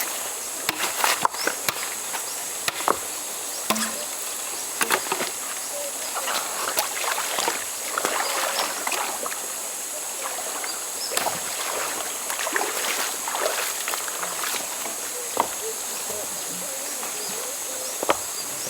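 River water splashing and sloshing in irregular bursts, over a steady high-pitched drone of insects.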